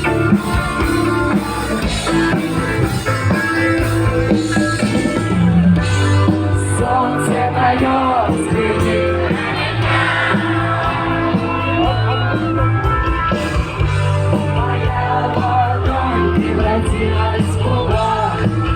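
Live concert music: a singer with a band playing a rock-style song.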